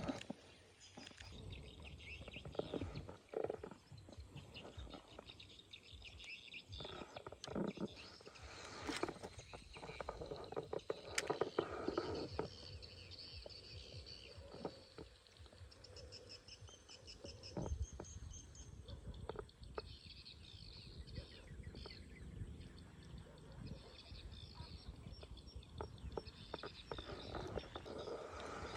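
Faint outdoor ambience of birds chirping and insects, with scattered small knocks and rustles throughout.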